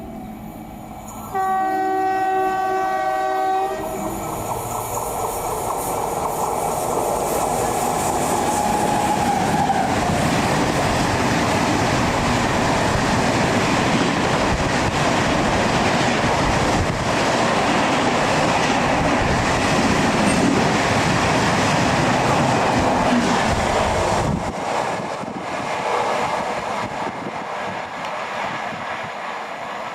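An express train's horn sounds one blast of about two seconds. The train then passes at speed with a loud rushing and rumbling for about twenty seconds, which drops away and fades near the end.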